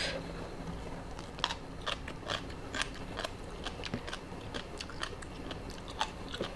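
Close-miked chewing of a mouthful of tam thale, spicy seafood papaya salad, with irregular crisp, crunchy clicks a few times a second.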